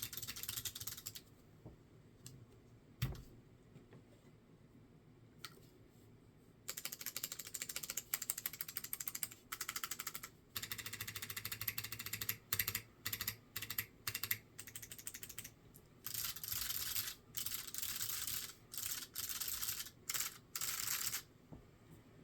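Typing on a Sensy Seal 80 mechanical keyboard with SMK 2nd gen clicky switches (MX mount) in an aluminium plate, with doubleshot ABS Cherry-profile keycaps: runs of fast clicky keystrokes separated by short pauses, and one single louder keystroke about three seconds in.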